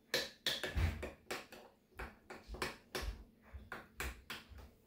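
A spoon clinking against the inside of a ceramic mug while stirring hot chocolate drink mix, quick repeated clinks about three or four a second, with a few dull knocks.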